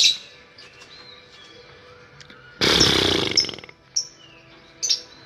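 Dakocan lovebirds calling: a loud harsh rattling chatter lasting about a second, a little past halfway, then two short high chirps.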